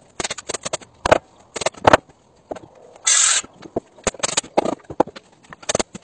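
Carpentry work on timber rafters: an irregular run of sharp knocks and clatter, with a brief harsh burst of tool noise about three seconds in.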